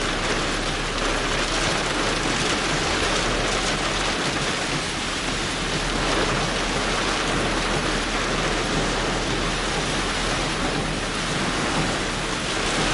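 Heavy rain pelting a car's roof and windscreen, heard from inside the cabin as a dense, steady hiss.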